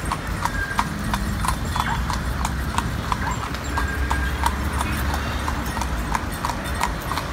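Horse's hooves clip-clopping on an asphalt street in a steady rhythm, about three strikes a second, over a low rumble of city traffic.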